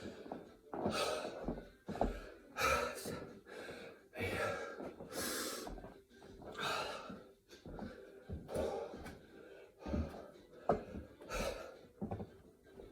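A man breathing hard and gasping from exertion, with heavy breaths about once every second or so.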